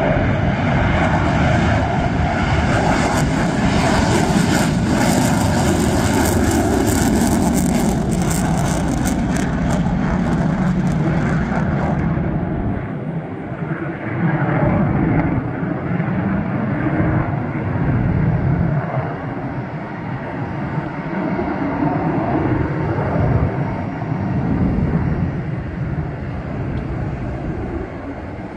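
McDonnell Douglas F-15C Eagle's twin Pratt & Whitney F100 turbofans at full afterburner on takeoff: a loud, steady jet roar with crackling through the first twelve seconds. The crackle and hiss cut off suddenly about twelve seconds in, leaving a lower, wavering rumble that fades slowly as the jet climbs away.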